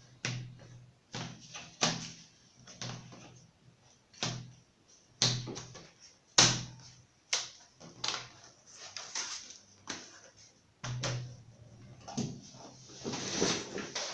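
Irregular clicks and knocks of hands handling a laptop and its parts, with a longer scraping sound near the end.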